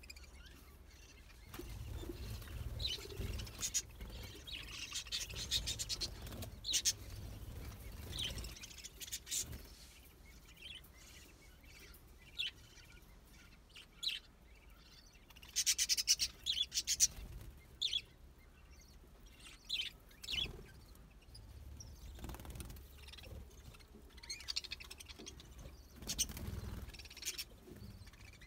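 A flock of budgerigars chirping and chattering in short, scattered high calls, busiest in the first third and around the middle. A low rumble sits under the calls for the first several seconds and again near the end.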